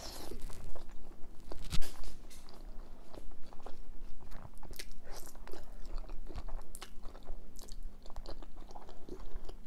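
Chewing and biting into chilli cheese fries with melted cheese: irregular mouth clicks and smacks, the loudest about two seconds in.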